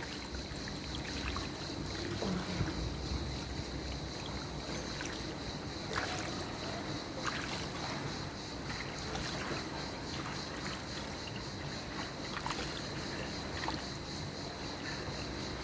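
Pool water lapping and sloshing at the edge as a swimmer paddles away, with a few faint small splashes. A faint steady high whine runs underneath.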